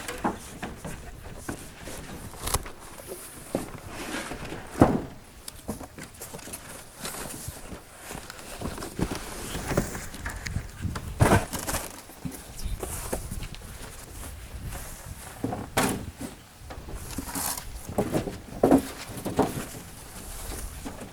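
Irregular knocks, thumps and shuffling sounds, with no music playing.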